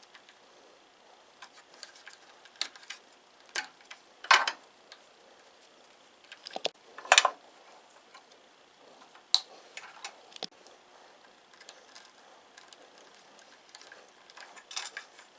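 Irregular small clicks and taps of hands working wiring and small parts, a few louder clicks standing out about four, seven and nine seconds in and a short rustle near the end.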